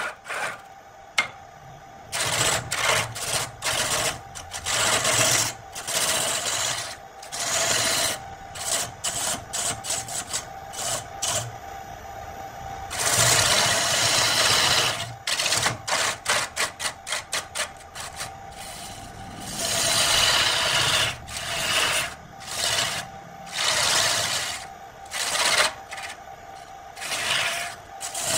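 Wood lathe spinning a log blank while a hand-held gouge cuts into it: repeated rasping cutting passes that come and go, with a cluster of short quick cuts and one longer pass about halfway through, over a steady hum from the spinning lathe.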